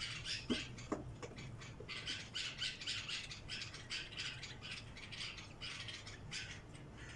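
Birds chirping and squawking rapidly and repeatedly, with two light clinks of a spoon on a plate about half a second and a second in.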